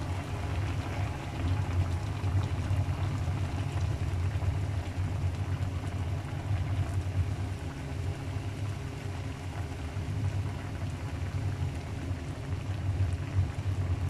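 Broth boiling in a wok: a steady low rumble with bubbling.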